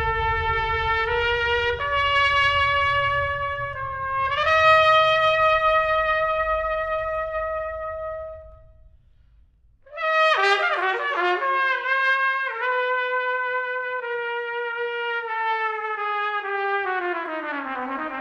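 Solo trumpet playing long held notes that step upward, over a low rumble. After a brief break it plays a quick flurry of notes, then slides downward in pitch near the end.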